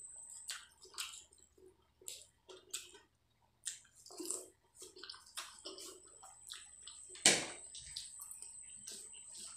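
Wet mouth sounds of someone eating spicy Maggi instant noodles: irregular slurps, chewing and small smacks, with one louder sharp sound about seven seconds in.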